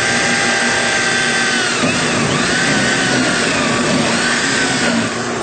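Power drill with a 1/4 inch bit drilling a hole in the fan's top front arm: the motor whine rises as it spins up, wavers in pitch as the bit cuts, and winds down near the end. A steady machine hum runs underneath.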